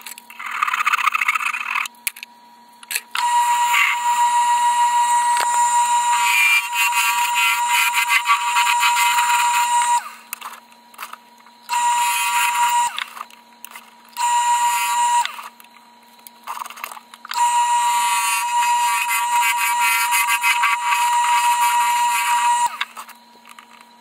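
Wood lathe running with a steady low hum while a turning tool hollows the end grain of a spinning blank. Each cutting pass gives a loud, high-pitched whining scrape, and there are five passes of one to seven seconds with short pauses between them.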